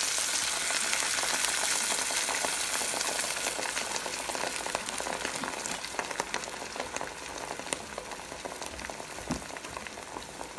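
Escovitch sauce of white vinegar, sliced carrot, onion, scallion and thyme sizzling in hot oil in a frying pan, with many small crackles; the sizzle fades gradually as the vinegar heats.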